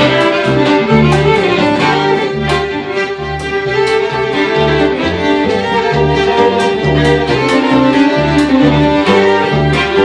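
Two fiddles playing a folk tune together over a plucked upright double bass, whose low notes keep a steady beat.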